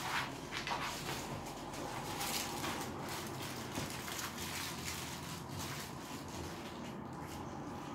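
Boxer dog chewing and mouthing a small toy on its cushion bed: soft rustling and gnawing, with a run of sharp clicks and scuffs in the first few seconds as it settles onto the bed.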